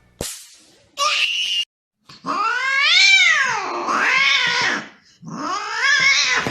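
A cat yowling: one long drawn-out call that rises and then falls, followed by a second, wavering call near the end. A short click and a brief noisy burst come before it.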